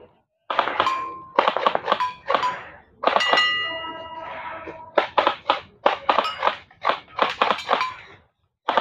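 Rapid strings of airsoft gun shots and BB impacts on targets, sharp clacks coming several to a second with short pauses between strings; some hits set a metal target ringing briefly, the longest ring about three seconds in.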